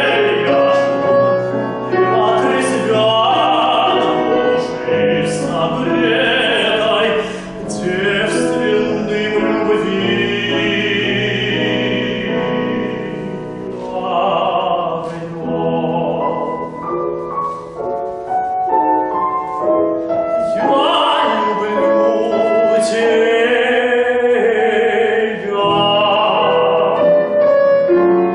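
A male opera singer singing an aria with piano accompaniment, his held notes carrying a wide vibrato.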